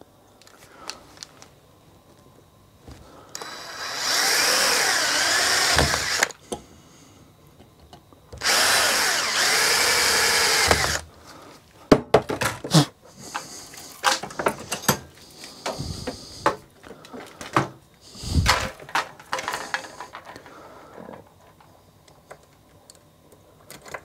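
Electric drill drilling holes in a copper pipe, in two runs of about three seconds each with the motor pitch wavering, followed by scattered clicks and knocks as the parts are handled.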